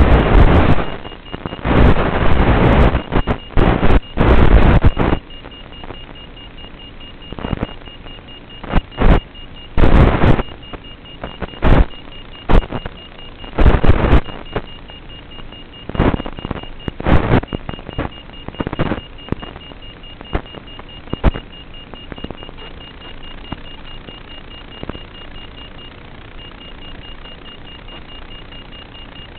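Irregular bursts of hissing static from an analog FPV video link as the signal from a downed quadcopter breaks up. The bursts come thick at first, grow sparse, and stop about two-thirds of the way through, leaving a low hiss. A faint high steady tone runs underneath.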